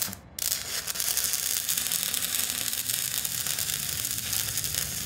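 Heavy rain falling, a dense steady crackling patter that starts abruptly about half a second in after a short click.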